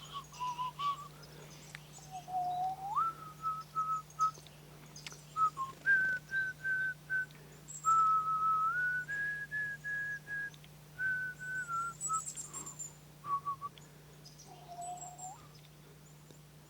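A person whistling a tune: one clear tone in held notes with a few upward slides in pitch, in short phrases with gaps between.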